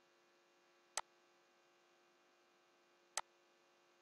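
Two sharp computer-mouse clicks about two seconds apart, over a faint steady electrical hum.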